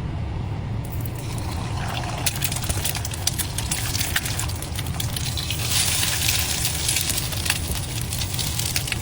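Water pouring and bubbling while instant noodles are cooked, with crackling ticks over a steady low hum; the noise thickens about six seconds in.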